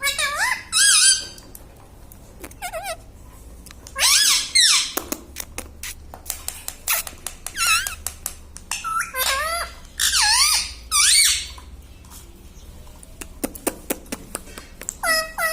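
Pet parrot giving squeaky, swooping calls and chatter in short bouts of a second or so, about five times, with sharp clicks between the bouts.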